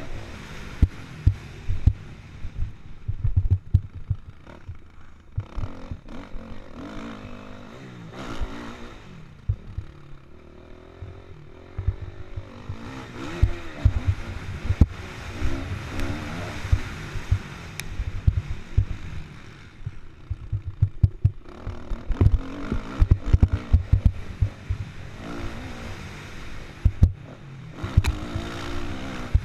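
Kawasaki KX450F motocross bike's single-cylinder four-stroke engine revving hard and dropping back repeatedly as the rider accelerates, shifts and backs off on a dirt track, over frequent low thumps and knocks from the bumps.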